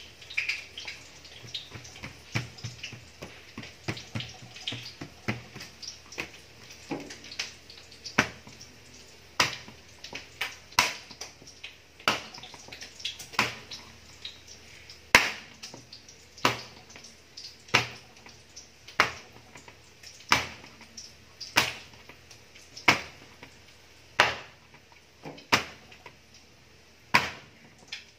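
Wet slaps and pats of oiled martabak dough being pressed and spread out by hand on a stainless steel table. They are soft and irregular at first, then become louder and steadier, about one slap every second and a bit.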